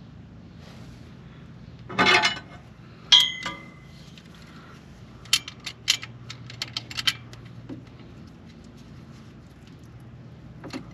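Metal parts and tools being handled: a loud clatter about two seconds in, then a sharp clink with a short ring a second later, then a run of light clicks and taps, over a faint low hum.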